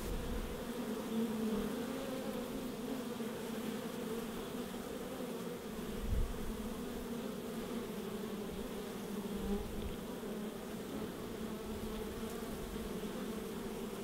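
Honey bees buzzing in a steady, slightly wavering hum, with a brief low thud about six seconds in.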